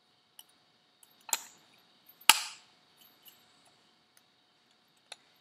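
Metal turbocharger parts knocking and clinking together as they are handled: two sharp clinks about a second apart, the second the louder, among a few light ticks, with one more click near the end.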